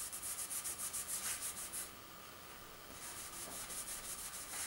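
A cloth rag rubbing clear wax over a chalk-painted wooden chair back in quick back-and-forth strokes, several a second. The strokes pause for about a second around the middle, then resume.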